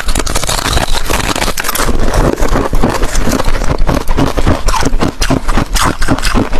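Ice cubes crunched between the teeth close to the microphone: a dense, continuous run of loud crackling crunches.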